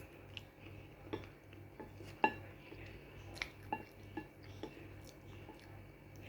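Chopsticks clicking and clinking against a bowl of instant pancit canton noodles, about a dozen irregular taps, some ringing briefly; the loudest comes a little over two seconds in. A low steady hum runs underneath.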